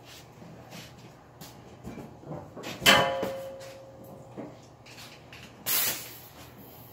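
Workshop handling noises: a sharp metallic clang about three seconds in that rings on for about a second, then a short hissing burst near the end, with a few light clicks and knocks between.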